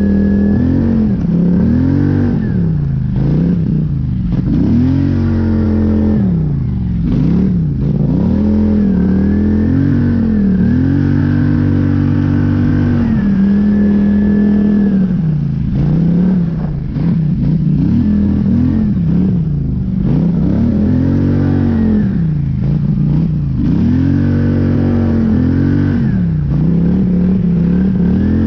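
Polaris Scrambler 850 ATV's twin-cylinder engine under throttle, revving up and down over and over with a few short stretches held at a steady pitch.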